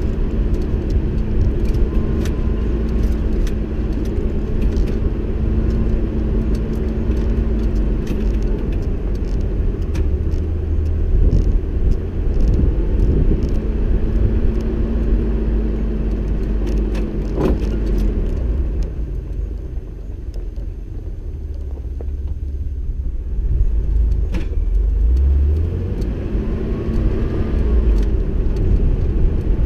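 A vehicle driving on a rough dirt road: steady engine drone and low rumble, with frequent clicks and rattles as it jolts over the track. The engine eases off for a few seconds past the middle, then picks up again.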